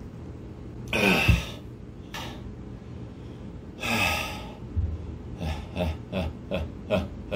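A man gasping and breathing hard through an open mouth from the burn of an extreme chilli extract. Two deep gasps, then from about five seconds in quick panting at about three breaths a second.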